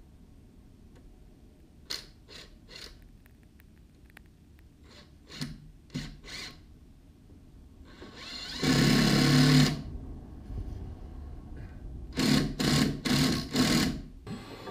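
Cordless drill driving screws into a wooden post in short bursts of its motor: a few light clicks first, then brief spins, one longer run about eight and a half seconds in, and four quick bursts near the end.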